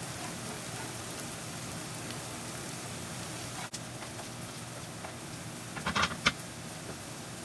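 Chopped onion and pepper sizzling steadily in oil in a frying pan, with a few sharp clatters about six seconds in.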